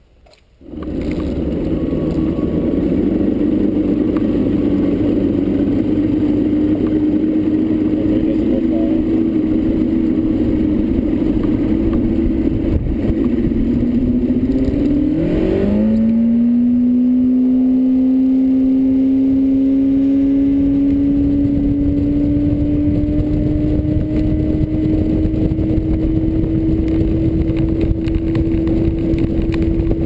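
Bass boat's outboard motor running at speed, a loud steady drone with rushing wind and water noise under it. About halfway through the engine pitch dips and then climbs slowly and steadily as the revs build again.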